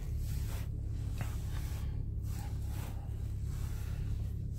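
1998 Toyota Camry engine idling steadily while the car stands still, heard from inside the cabin, with a couple of faint clicks.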